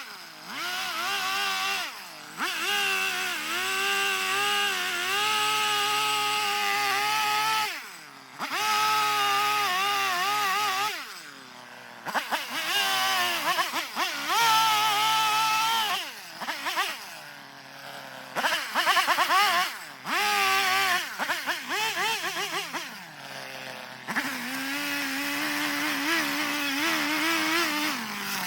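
Chainsaw cutting wood in repeated spells, its engine revving up and dropping back every few seconds as the cuts start and stop, settling to a lower, steadier speed near the end.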